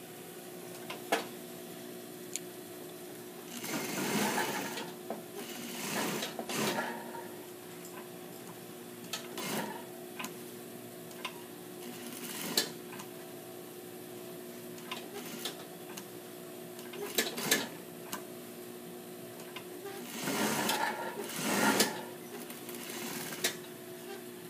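Juki industrial flatbed sewing machine stitching in several short runs, pad-stitching canvas, over a steady hum, with small clicks between the runs while the fabric is turned and repositioned. The two loudest runs come near the end.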